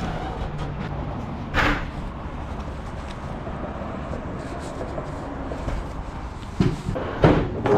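Fabric work gloves being handled and pulled on, with rustles and brushes, the loudest about a second and a half in and again near the end, over a steady low engine rumble.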